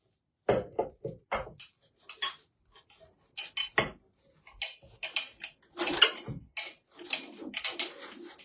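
Parts of a floor-standing lamp being handled and fitted together: a run of irregular hard clicks, knocks and clinks, loudest about six seconds in.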